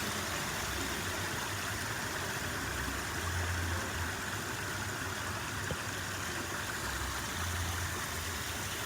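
Water running steadily in a small garden water feature, an even rushing hiss, with a low hum that swells a little twice.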